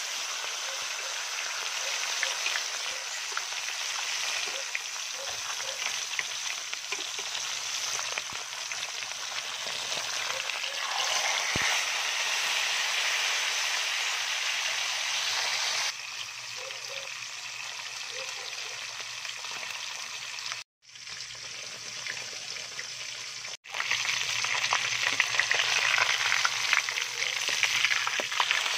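Whole tilapia frying in hot oil in a pan: a steady sizzle of bubbling oil, which cuts out briefly twice in the last third.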